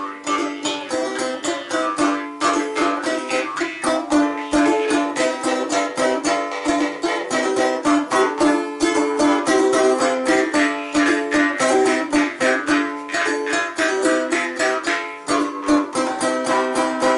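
Balalaika strummed fast and steadily together with a jaw harp (vargan) twanging a constant drone whose overtones shift above it.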